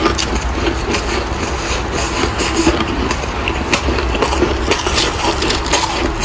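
Freezer frost being crunched close to the microphone: a dense, continuous run of crisp crackles over a low rumble.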